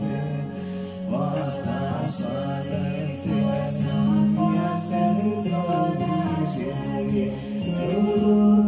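A song: a voice singing a melody over sustained instrumental accompaniment.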